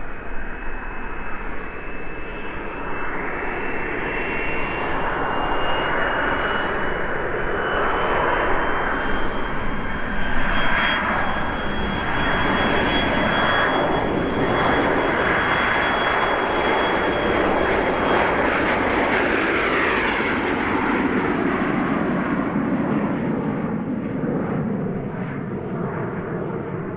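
Twin model jet turbines of a radio-controlled A-10 Warthog scale model spooling up to full power for the takeoff run: a high whine rising in pitch over the rushing jet noise, which grows louder through the middle. Near the end the whine and noise ease and fall as the model lifts off and climbs away.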